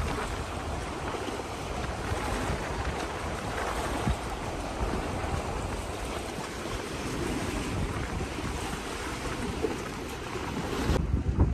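Choppy lagoon water lapping and splashing steadily against a wooden pier, with wind gusting on the microphone.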